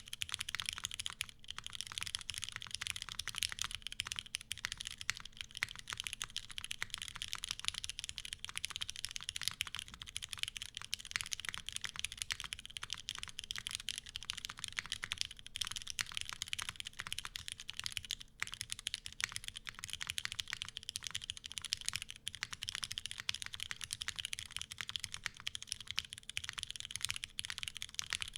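Fast, continuous typing on a Bias V2 mechanical keyboard fitted with lubed retooled Cherry MX Black linear switches: a dense, steady stream of keystroke clacks.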